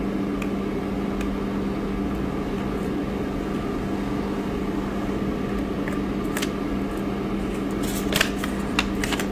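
Steady mechanical hum with a low, even tone, like a fan or pump running, and a few light clicks in the second half.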